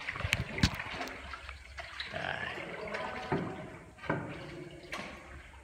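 Water trickling and dripping inside a cave, with a few sharp knocks scattered through and faint voices about two seconds in.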